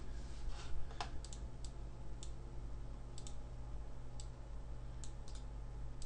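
Computer keyboard keys struck one at a time, a sparse, irregular run of about a dozen clicks, over a steady low hum.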